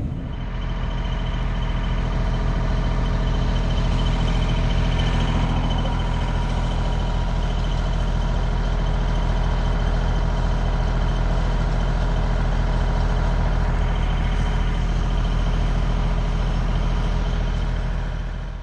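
Fire truck engine idling steadily, a constant low hum with an even, unchanging drone, fading out near the end.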